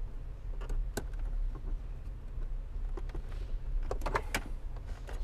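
Small plastic clicks and rustling as crimp-on T-tap wire connectors and wiring are handled and pushed together, with a sharp click about a second in and a cluster of clicks around four seconds; a steady low hum underneath.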